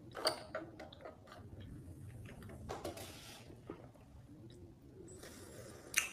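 Faint handling noises: scattered small clicks and knocks, the loudest just after the start and just before the end.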